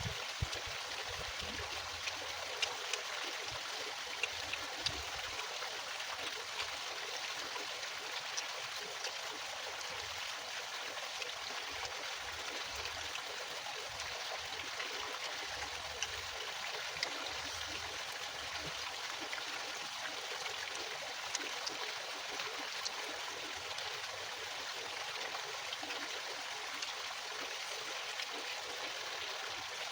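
Hot oil sizzling steadily in a frying pan, with small crackles and pops scattered through it.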